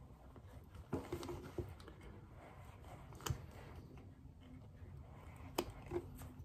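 Faint, scattered clicks and taps, about a handful in all, from a thin card and fingers working the rubber diaphragm's lip into the groove of a Honda Deauville carburettor piston.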